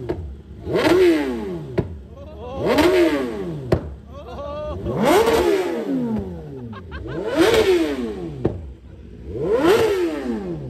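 BMW superbike engine free-revved at standstill: five quick throttle blips about two seconds apart, each rising sharply in pitch and then falling back toward idle.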